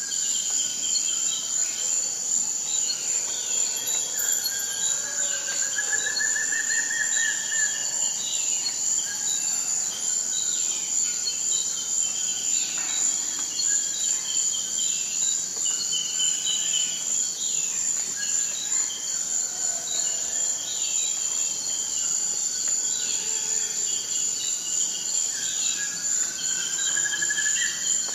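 Forest ambience: a steady, high insect drone runs unbroken, with many short chirping bird calls over it. A longer trilling call that rises slightly comes twice, about five seconds in and again near the end.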